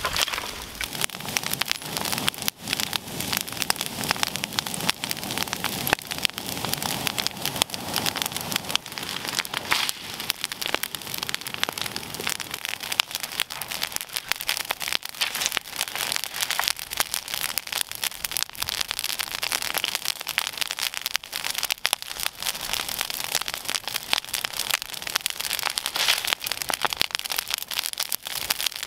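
Bonfire of dry branches and brushwood burning, a dense stream of sharp crackles and pops.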